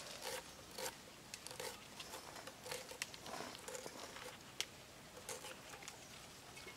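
Faint rustling and small clicks of fingers peeling a small bulb and trimming it against an upright fixed kitchen blade. A low, short call repeats at uneven intervals in the background.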